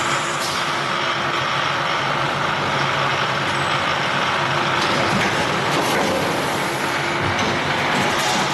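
Steady running noise of a rotor aluminium die-casting machine and its factory surroundings, with a few short pneumatic hisses.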